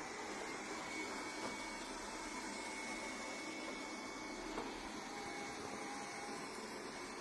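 Dibea robot vacuum cleaner running, a steady whir with a thin high whine over it.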